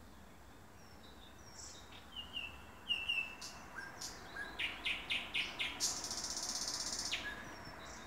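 Thrush nightingale singing one song phrase: a few falling chirps, then a run of loud, sharp clacks about five a second, ending in a fast rattle that stops suddenly about seven seconds in.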